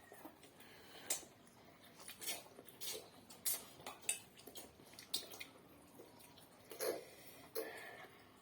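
Eating sounds at a bowl of instant ramen: scattered clicks of utensils against the bowl and wet mouth sounds of the noodles being eaten, with two somewhat louder sounds near the end.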